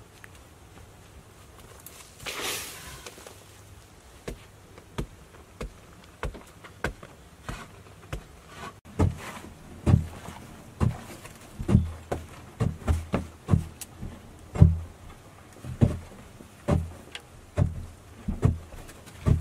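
Hands scraping and scooping loose soil off a packed dirt floor into a woven bamboo basket: a series of dull thuds and scrapes, roughly one a second, through the second half. A short rush of noise about two seconds in.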